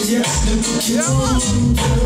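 Recorded music played loud through a sound system's speaker stacks, with a heavy, pulsing bass line and a voice over it.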